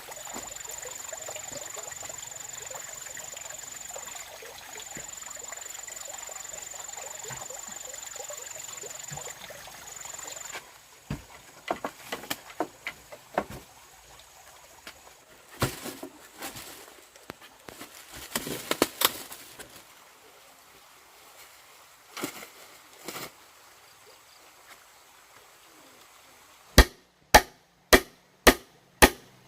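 Woodworking knocks and taps, then near the end a run of sharp, loud strikes about two a second: a tool striking wood. For about the first ten seconds a steady high-pitched drone sits over a hiss.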